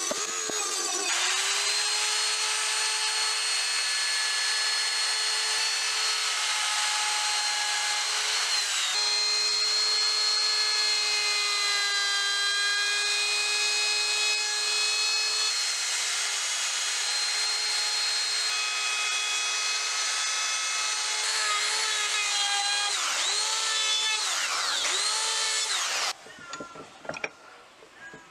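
A small high-speed electric power tool runs with a steady whine while working wood. Its pitch sags and recovers as it is loaded, then it winds down and stops about 26 seconds in, followed by a few faint knocks.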